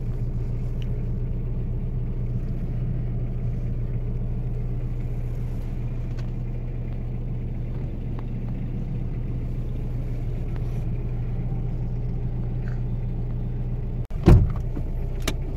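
Steady low drone of a moving car heard from inside the cabin, road and engine noise together. Near the end a brief loud knock cuts through it, with a smaller click a second later.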